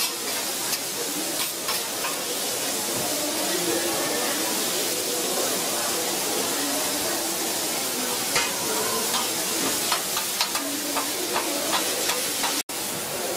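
Noodles and seafood sizzling on a hot flat iron griddle while metal spatulas scrape and clack against the plate, the clicks coming more often in the second half. The sound cuts out for an instant near the end.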